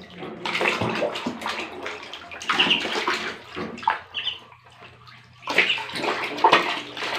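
Water splashing and sloshing in a plastic tub as a baby monkey and ducklings swim and thrash about in it. The splashing comes in three bursts: near the start, around the middle and near the end.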